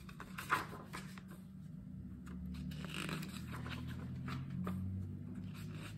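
Quiet rustling and small taps of a hardcover picture book being handled and turned over, with a low steady hum underneath.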